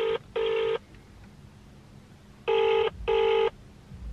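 Outgoing mobile phone call ringing out on speakerphone: the double-ring ringback tone, two short steady tones in quick succession, one pair at the start and another about two and a half seconds later, while the call waits to be answered.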